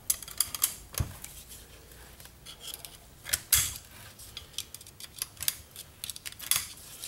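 Scattered metal clicks and scrapes as a snap ring is worked into its groove with a screwdriver over the backing plate of a TH400 direct clutch drum. Louder clinks come about a second in, around three and a half seconds, and near six and a half.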